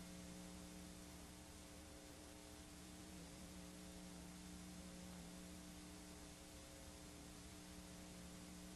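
Faint, steady electrical hum with several fixed low tones over an even hiss: the blank audio track of a videotape played back after the recording has ended.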